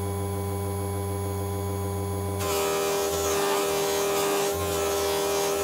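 Small HBM 100 mm electric polishing machine running with a steady hum while a thin steel rod is held against its spinning polishing wheel. A higher, brighter layer of the sound cuts off about two and a half seconds in, and the hum carries on.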